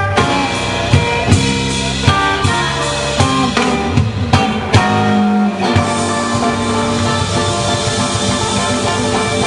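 Live blues-rock band playing electric guitars, bass guitar and drum kit. In the first half the band punches short accented hits together with drum strikes. About six seconds in it settles into a dense, steady groove.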